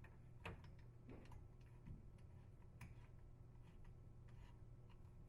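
Near silence with a few faint, scattered light clicks, like quiet handling of parts.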